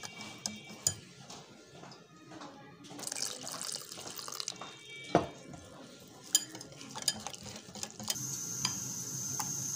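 A wire whisk beating a thin besan and cornflour batter in a glass bowl, with sharp clicks as it strikes the glass. Liquid stock is poured in partway through to thin the batter. A steady high-pitched whine comes in near the end.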